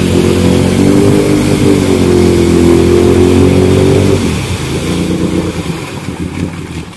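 Can-Am Outlander ATV engine revved hard and held high as its spinning tires churn through deep mud. About four seconds in the revs drop off, and the engine runs on lower and quieter.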